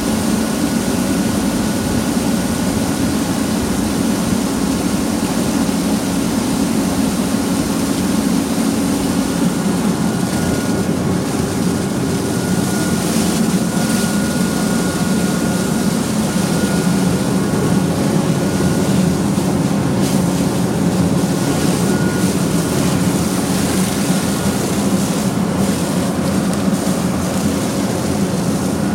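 Heavy diesel construction machinery running steadily: a constant low engine drone with a thin, steady whine above it.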